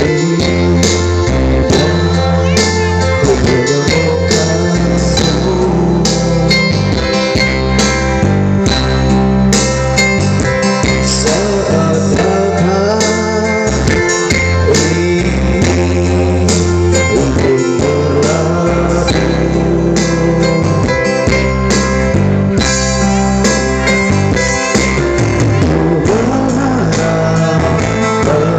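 Instrumental break of a pop song played on an electronic keyboard (orgen): a steady bass and drum rhythm under a moving melodic lead line.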